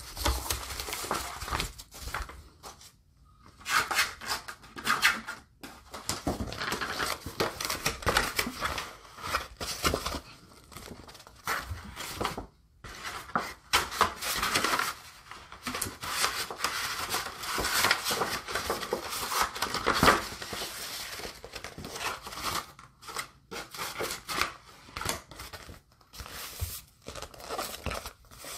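Paper documents and a USPS Priority Mail envelope being handled: rustling and crinkling in irregular bursts with a few short pauses.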